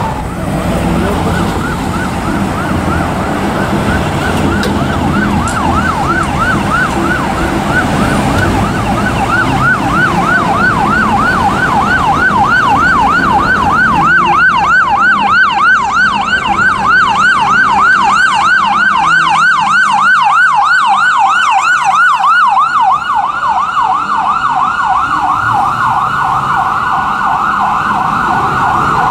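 Emergency vehicle siren on a fast yelp, its pitch sweeping rapidly up and down over and over, growing louder towards the middle.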